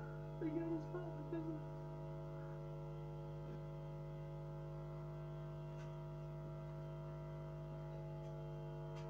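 Steady electrical hum with many evenly spaced overtones, unchanging throughout. A few short vocal sounds come about half a second to one and a half seconds in.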